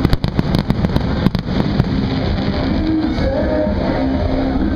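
Aerial firework shells bursting, a rapid run of sharp cracks and bangs in the first two seconds or so, then dying away, with music playing underneath.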